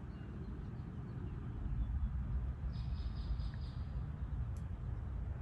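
A bird calling from the park trees: a quick run of high repeated notes about three seconds in, lasting about a second and a half, over a steady low rumble.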